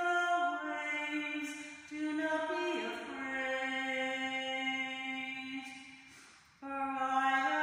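A woman's solo voice singing a hymn unaccompanied, in long held notes that step from one pitch to the next. The phrase fades out just after six seconds in, and after a short breath the next phrase begins.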